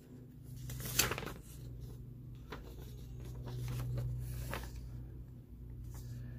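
Paper instruction sheet being handled and unfolded, rustling with a few sharp crinkles, the loudest about a second in, over a low steady hum.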